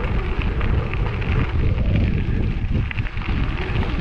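Bicycle tyres crunching over a loose gravel road, with a steady rumble of wind on the microphone.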